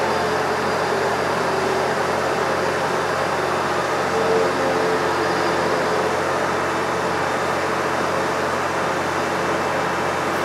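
DMG Mori CNC lathe making a finishing pass on the outside of a turned part: a steady machine hum of the spindle and pumps with the hiss of flood coolant spraying over the work, swelling slightly about four seconds in.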